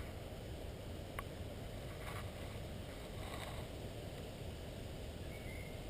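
Wind buffeting a handheld GoPro microphone: a steady low rumble, with a couple of faint clicks about one and two seconds in.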